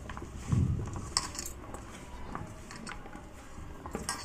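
Hand mixing cut potato sticks with flour in a steel plate: soft rustling and scraping, with scattered light metallic clinks against the plate and a dull knock about half a second in.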